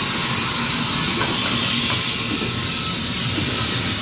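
Steam engine hissing steadily, with a rough low rumble underneath.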